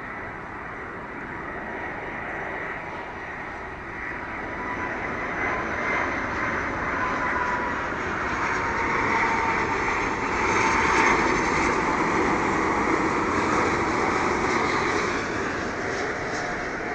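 Airbus A330-243 airliner's Rolls-Royce Trent 700 turbofans on landing approach: a steady jet whine with tones that slowly fall in pitch, growing louder to a peak about ten seconds in, then easing as the aircraft passes.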